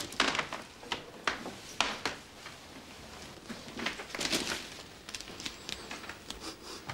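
Gift-wrapped packages being stacked and handled: wrapping paper rustling and crinkling in short bursts, with a few light knocks, the busiest stretch about four seconds in.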